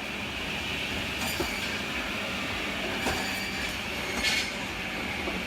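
Machine running with a steady grinding, squealing noise, with three brief louder bursts.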